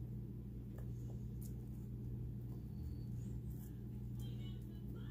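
A steady low hum, with a few faint soft clicks and rustles as raw onion rings are pulled apart by hand and laid on seasoned meat in a glass baking dish.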